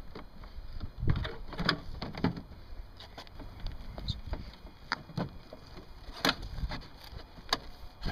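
Plastic headlamp housing of a 2008 Ford Focus knocking and clicking as it is wiggled and pressed back into its mounting clips. There is a cluster of knocks about a second in, then several single sharp clicks.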